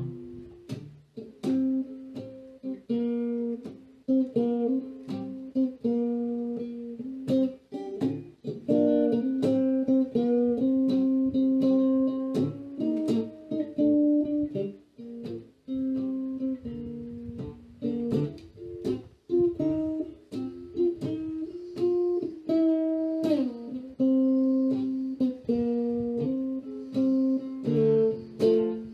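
Archtop electric guitar playing an instrumental blues break: picked single notes and double-stops with sharp attacks, and one note sliding down in pitch about three quarters of the way through.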